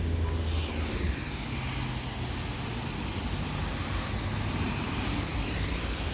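Road traffic: a motor vehicle passing close by, its low engine hum dropping away about a second in, followed by steady traffic and tyre noise.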